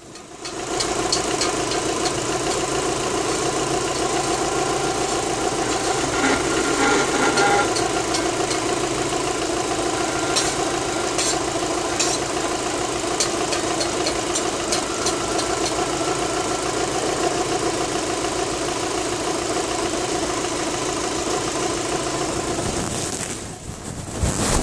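Rover 25's 1.6 four-cylinder petrol engine idling steadily, its newly fitted power boost valve set to the point where the sound of it sucking in extra air has stopped. A few light clicks come about halfway through.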